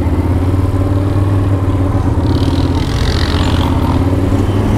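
ATV engine running steadily at low, even throttle while riding a forest trail. A short hiss comes and goes about two to three and a half seconds in.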